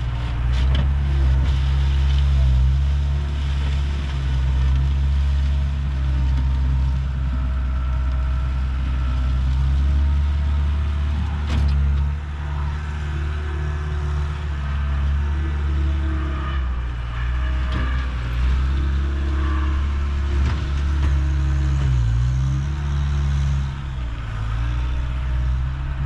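John Deere 320D skid steer's diesel engine running steadily under work, its pitch dipping briefly and recovering a few times.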